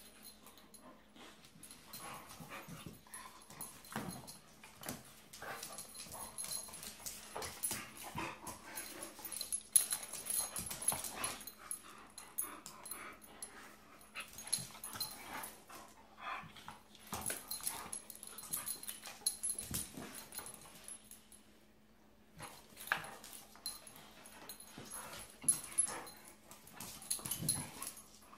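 Two dogs play-fighting: irregular bursts of dog play noises mixed with scuffling, going quiet briefly about three quarters of the way through. A faint steady hum runs underneath.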